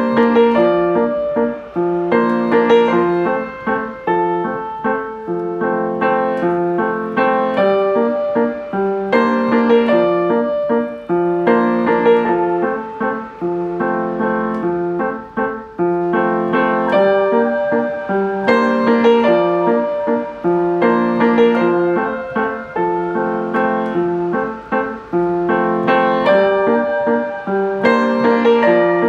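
Background music: a gentle piano piece with a repeating phrase of notes and chords.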